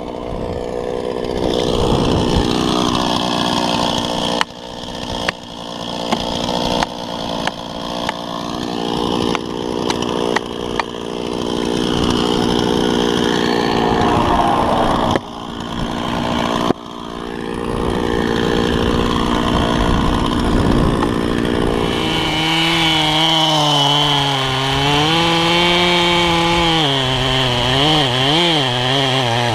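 A chainsaw running. From about 4 to 17 s a series of hard knocks, roughly one a second, comes from an axe driving felling wedges. From about 22 s a large Stihl chainsaw cuts into the trunk at full throttle, its pitch wavering up and down as the bar loads and frees in the wood.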